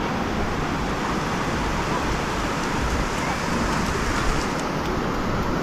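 Ocean surf washing onto the beach, with wind buffeting a phone's built-in microphone in a steady low rumble.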